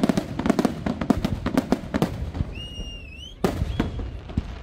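Fireworks display: rapid volleys of aerial shell bursts and crackling reports. They ease off a little past halfway, while a short high whistle holds and then rises, and a heavy new volley of bangs breaks in near the end.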